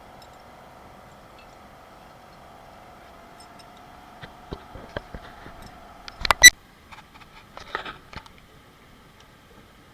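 Hand tools and metal engine parts being handled: scattered clicks and knocks, with one loud, ringing metallic clank about six seconds in. A faint steady hum lies underneath until then.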